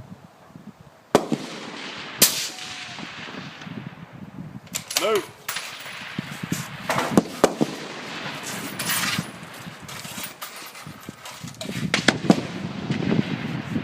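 Precision rifle shots: two sharp reports about a second apart near the start, each trailing off in an echo, then further sharp cracks mixed with voices.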